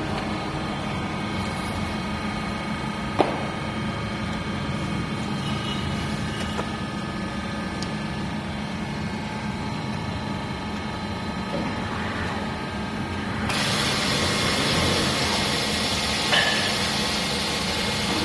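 Polar 92 EM paper guillotine running with a steady electric machine hum, with a single sharp knock about three seconds in. A louder hiss joins about three-quarters of the way through and continues.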